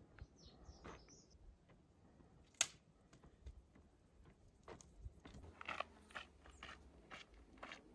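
Faint, irregular crunching steps on a stony mountain trail, with a sharp click about two and a half seconds in and a short high chirp near the start.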